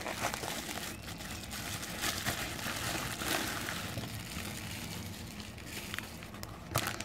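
Bubble wrap and a thin plastic bag crinkling and rustling as hands unwrap an anime figure, with a steady run of small crackles.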